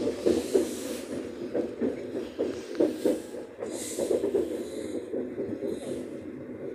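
Suburban electric train pulling away from a station, heard from inside the carriage: a steady rumble of wheels on rails with irregular clatter, and a couple of brief hisses.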